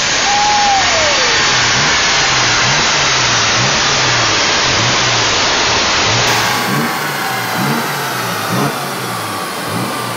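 Twin-turbo Nissan 300ZX's V6 on a chassis dyno, revved in repeated short blips over a loud steady rushing noise, with one falling whine in the first second or so.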